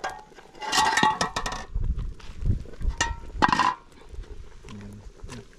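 Metal skimmer clinking and scraping against an enamel pot of soup as it is stirred, in two ringing clattery bursts, about a second in and again about three seconds in.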